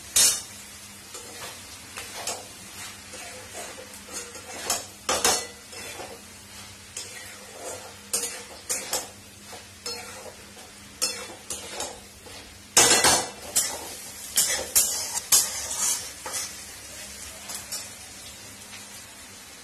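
Sliced onions sizzling in oil in a steel wok while a metal spatula stirs them, scraping and clinking against the pan at irregular intervals, with a run of louder scrapes about two-thirds of the way in. The onions are being fried until browned.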